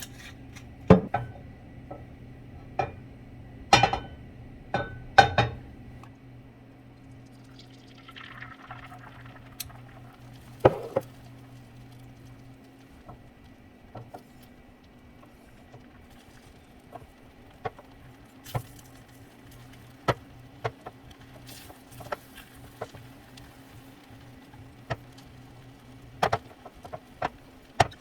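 Cooking utensils and cookware clinking and tapping at irregular intervals, with a few louder knocks in the first six seconds and a cluster near the end. A steady low hum runs underneath and stops shortly before the end.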